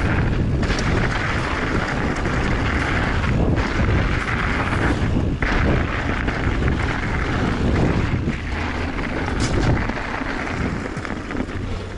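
Mountain bike riding fast down a forest trail: wind buffeting the camera microphone over a steady rumble of tyres on dirt, with a few sharp knocks and rattles as the bike hits bumps.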